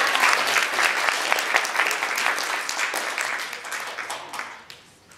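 Audience applauding, a dense patter of clapping that thins and dies away about four seconds in.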